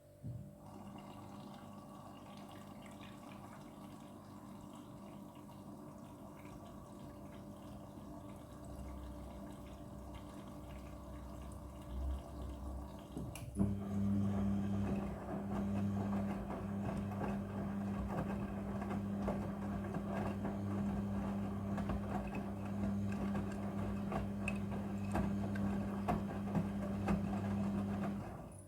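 Front-loading washing machine with water running into the drum; about halfway through a louder steady motor hum sets in along with water sloshing as the drum turns the laundry.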